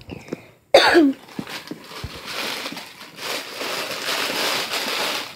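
A person coughs once, sharply, about a second in, then a thin clear plastic bag wrapped around a sequined costume crinkles and rustles steadily as it is handled, growing louder partway through.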